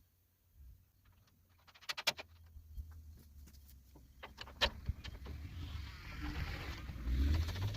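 Scattered clicks and metal knocks of parts and bolts being handled while a painted piece is fitted back onto a baler's kicker, over a low rumble that grows louder near the end.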